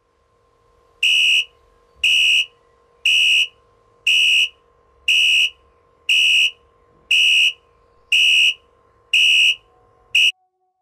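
Smartphone alarm clock beeping, one high beep about every second. Nine full beeps, then a tenth is cut short as the alarm is swiped off.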